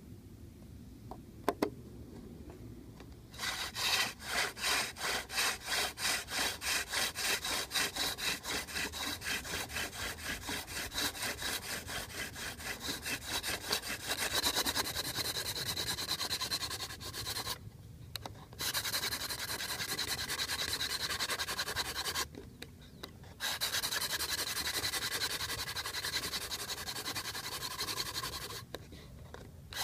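Hand-drill fire by friction: a yucca spindle spun back and forth in the socket of a box elder hearth board, a dry wood-on-wood rubbing that starts about three seconds in as even strokes, about two a second, then becomes a faster, steadier rub broken by three short pauses, grinding out the dark dust that makes an ember. A single sharp click comes just before the drilling starts.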